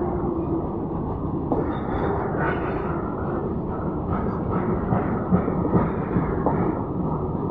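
Open-top freight wagons of a long goods train rolling past at speed: a steady rumble of wheels on rails, with occasional sharp knocks from the wheels over the rail joints.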